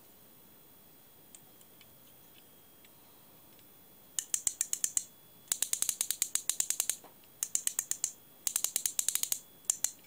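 Click-and-pawl check of a 1960s Japanese copy of a Pflueger Medalist fly reel, ratcheting in about five quick bursts of rapid clicks as the spool is turned by hand. A few faint handling ticks come before the first burst.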